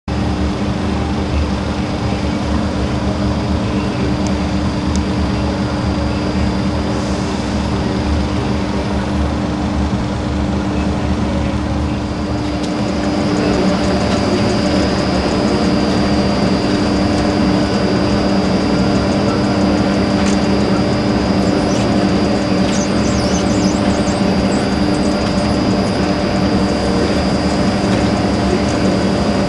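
Steady running noise of automated factory machinery, with a constant hum under it; it grows a little louder about 13 seconds in.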